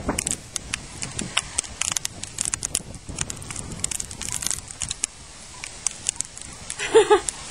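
Irregular crackling and rustling clicks, several a second, as a young springer spaniel puppy roots about on the ground; a short two-note whine comes about seven seconds in.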